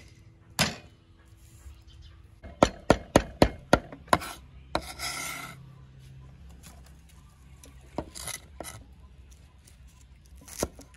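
Cleaver chopping garlic on a thick wooden chopping block. One knock near the start, then a quick run of about six chops, followed by a short scrape of the blade across the board and a few single knocks later.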